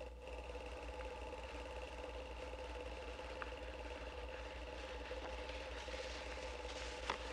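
Steady machine hum with hiss, holding several even tones without change, broken by a couple of faint clicks.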